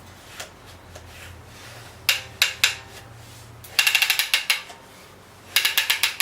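Wooden ratchet arm clicking over the teeth of a wooden ratchet: three single clicks about two seconds in, then two quick runs of clicks, one near four seconds and one near six.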